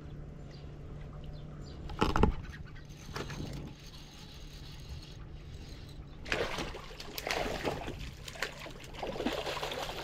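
A hooked catfish splashing at the water surface as it is reeled in and landed, the splashing coming in bursts from about six seconds in. A loud thump about two seconds in.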